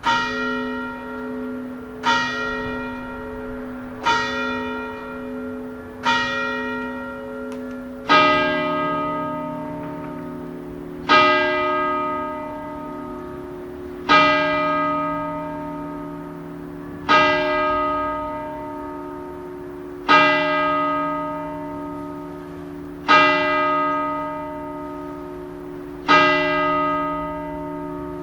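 A bell struck again and again, each strike ringing on and slowly dying away. Four strikes come about two seconds apart, then about eight seconds in a deeper bell takes over, struck seven times about three seconds apart.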